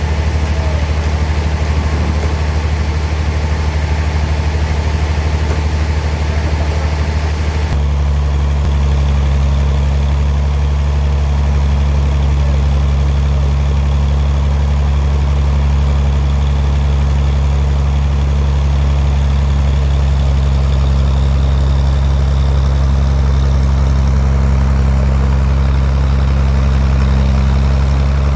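Sawmill bandsaw machinery running with a steady low drone; its pitch shifts about eight seconds in.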